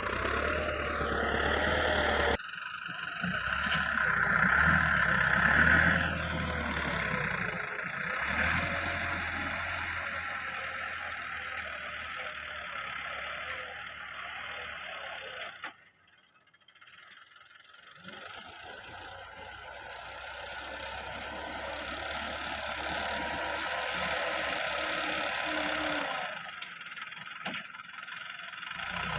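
Massey Ferguson 375 tractor's diesel engine running steadily with a low hum. It comes in several segments that cut off abruptly, with a short quieter gap about halfway through.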